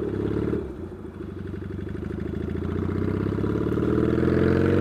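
Yamaha XS650 parallel-twin engine accelerating, its note rising steadily after a short dip about a second in, through exhaust pipes that are a bit loud despite their baffles.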